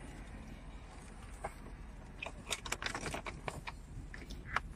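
A quick series of light plastic clicks and taps from a car's centre-console trim panel being handled and pressed into place, sparse at first and bunched together in the second half.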